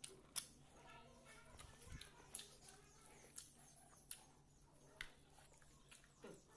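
Faint eating sounds from a person eating with their hands: chewing and wet lip-smacking clicks, a sharp click every second or so, over a low steady hum.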